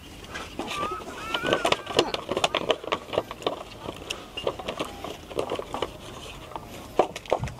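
Scissors snipping open a small plastic food sachet while food packaging is handled: a run of small clicks and crinkling rustles.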